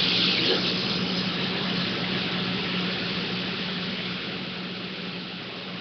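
A steady rushing hiss that slowly fades, over a constant low hum.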